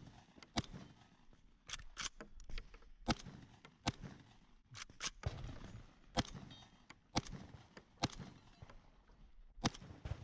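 Vepr 12 semi-automatic 12-gauge shotgun firing at steel targets, about a dozen sharp shots at uneven intervals, some in quick pairs. It suffers a failure to extract, which the shooter puts down to a recoil spring that needs replacing.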